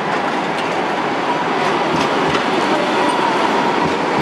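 Sydney light-rail Variotram passing close by on street track, its wheels and running gear making a steady rumble with a few light clicks and a thin steady whine, growing a little louder as it draws alongside.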